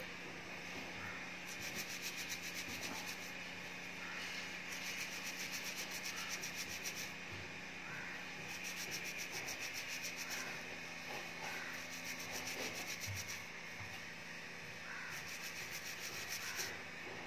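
Fast, rhythmic scratching or rubbing in about four bursts of roughly two seconds each, over a steady low hum.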